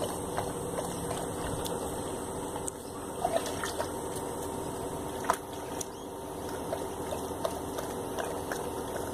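Border collie's paws sloshing and splashing water in a shallow plastic paddling pool, with scattered small splashes and drips, the sharpest about three and five seconds in, over a steady low hum.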